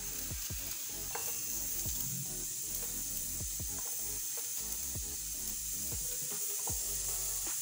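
Knife slicing fresh coconut flesh, with pieces dropping into a steel mixer jar, over a steady high hiss and soft background music.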